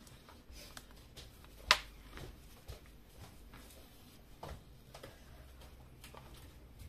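Fingers pressing a freshly glued round shaker element down onto a paper card, giving scattered small taps and clicks of fingertips and nails on the piece, with one sharper click a little under two seconds in.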